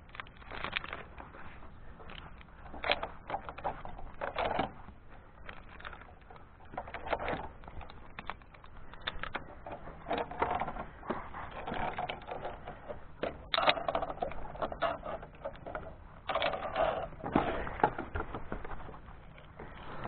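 Irregular clicking, knocking and scraping of a climber's metal gear, carabiners and lanyard hardware, against steel cable and a wooden pole, coming in clusters with short quieter gaps between.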